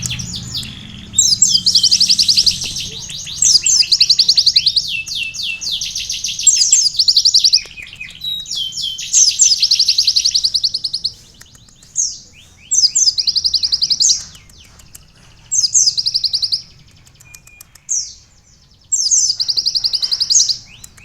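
A captive kolibri ninja sunbird singing with learned canary phrases ('isian kenari'): rapid, high, rattling trills, nearly continuous in long bursts at first, then broken into phrases of about a second with short pauses between.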